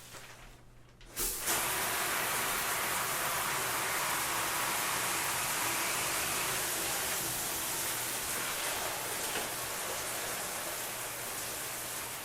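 A shower running: water spraying steadily, switched on about a second in.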